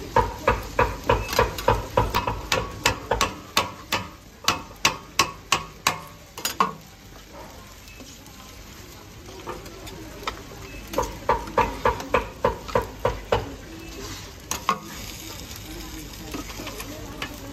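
A metal spatula chopping food into pieces on a flat iron griddle: quick, sharp taps of steel on the hot plate, about three a second, in two runs, the second starting about ten seconds in. A low sizzle of frying runs underneath.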